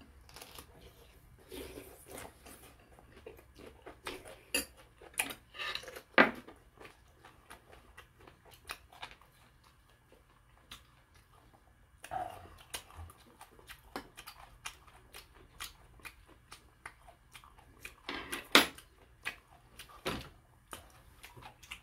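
Eating sounds at a table: scattered light clicks and clinks of chopsticks and spoons against bowls and plates, with a few sharper knocks and some chewing.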